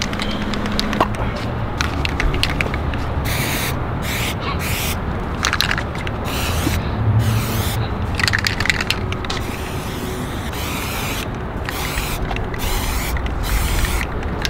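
Aerosol spray-paint can hissing in a run of spray strokes, each stopping abruptly in a short gap before the next, as paint is sprayed onto a truck's door.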